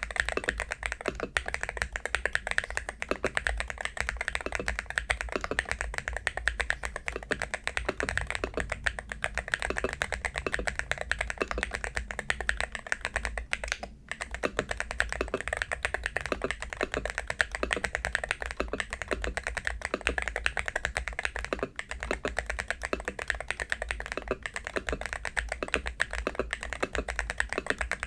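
Fast, continuous typing on an AULA Hero68HE Hall-effect magnetic-switch keyboard with Silver switches and transparent keycaps: a dense, unbroken stream of keystrokes with a brief lull about halfway through.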